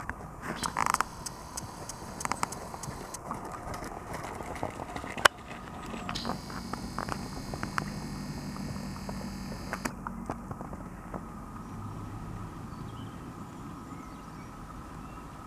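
Outdoor background noise with scattered soft thuds and clicks from a horse trotting on a rubber-chip arena surface, its hoofbeats and tack. A sharp click comes about five seconds in, and a low steady hum runs for a few seconds after it.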